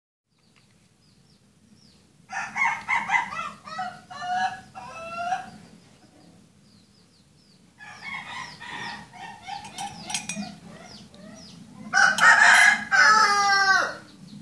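Domestic fowl calling in three bursts of choppy, wavering calls, the last and loudest a long call falling in pitch about twelve seconds in, like a rooster's crow. Faint high chirps and a steady low hum lie underneath.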